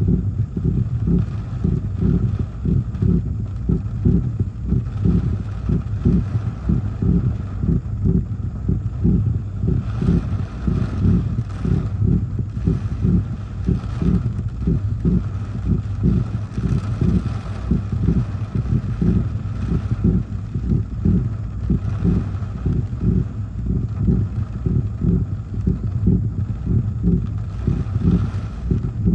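Hurricane squall wind and rain buffeting a stationary car, heard from inside the cabin as a loud, fluttering low rumble.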